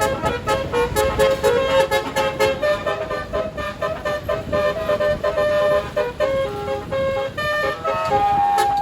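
Basuri telolet multi-trumpet air horns on a tour bus playing a tune, the notes stepping quickly from pitch to pitch and one note held longer near the end.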